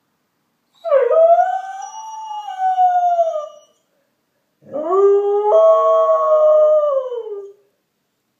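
A dog howling: two long howls of about three seconds each. The second sweeps up from low before levelling off, and both fall in pitch at the end.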